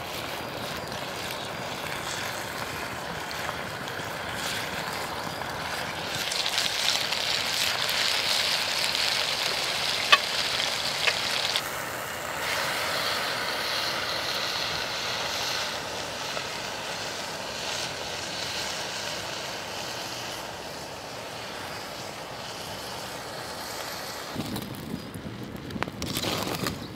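Sausages and bacon sizzling in a cast-iron skillet over a campfire: a steady frying hiss with occasional sharp pops, loudest in the middle. Near the end come a few knocks as the pan is handled.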